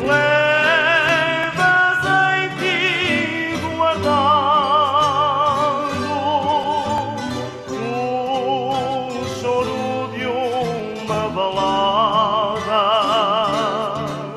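A Portuguese ballad: a voice holds long notes with a strong vibrato over plucked guitar accompaniment.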